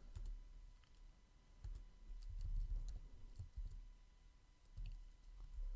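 Faint, scattered clicking of a computer keyboard being typed on, with a few soft low thumps.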